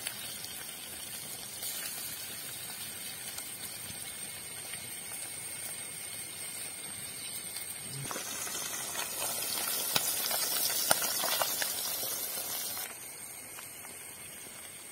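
Masala-coated fish deep-frying in hot coconut oil in an aluminium kadai: a steady sizzle with scattered crackles. It grows louder about halfway through, then drops abruptly to a fainter hiss near the end.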